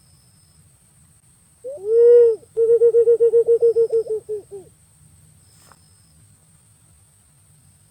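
Punai pink green pigeon calling: one drawn-out whistled coo about a second and a half in, then a quick run of about fourteen short coos at the same pitch, fading near the end of the run.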